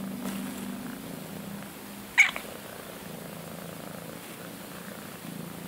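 Domestic cat purring steadily close to the microphone. A brief sharp noise cuts in about two seconds in and is the loudest moment.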